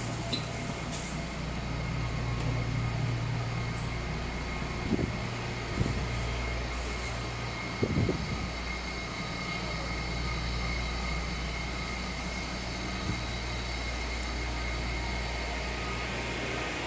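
Steady low hum with a faint high whine from a stopped 211 series electric train's onboard equipment, heard from inside the car. A few dull knocks stand out about five, six and eight seconds in.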